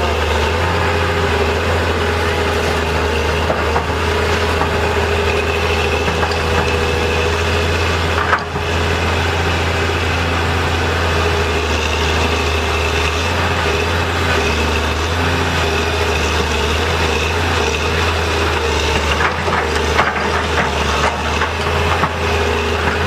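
Heavy diesel engine of earthmoving equipment running steadily with a deep, constant hum. It dips briefly about a third of the way in, and a few light knocks come near the end.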